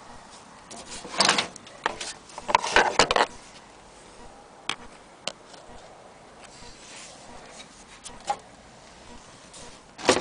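Irregular knocks and clatter of objects being handled. The loudest clusters come about a second in and around three seconds in, with single sharp clicks after that and one more knock near the end.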